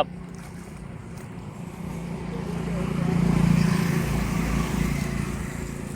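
A motor vehicle passing: its engine grows louder from about two seconds in, is loudest in the middle, then fades away, over a steady low hum.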